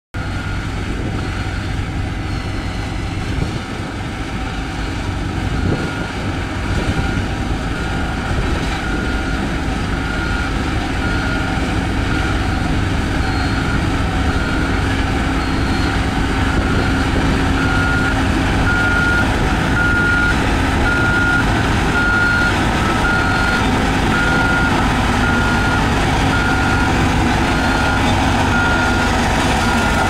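Diesel engine of a Cat CS533E single-drum road roller running steadily, with a reversing alarm beeping at an even pace from a few seconds in.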